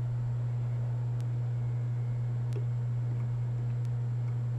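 Steady low hum with a faint hiss underneath, broken only by a few faint clicks.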